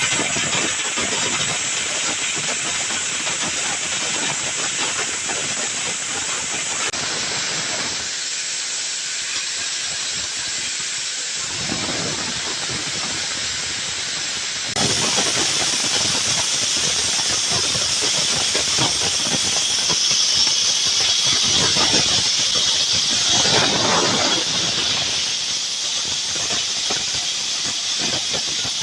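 Corn cob grinding mill running with a steady, dense hiss, growing louder about 15 seconds in.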